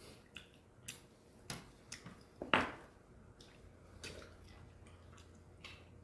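Faint, scattered light clicks and taps of things being handled on a table, with one louder knock about two and a half seconds in, over a low steady hum.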